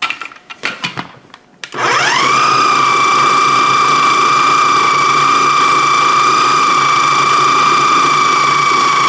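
Food processor blending a wet marinade paste: after a few light clicks and knocks, the motor starts about two seconds in, rising quickly in pitch to a loud, steady whine.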